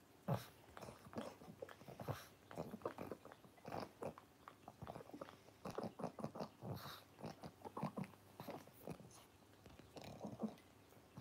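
A pug licking and mouthing a person's fingers: wet, smacking mouth sounds, short and irregular, several a second.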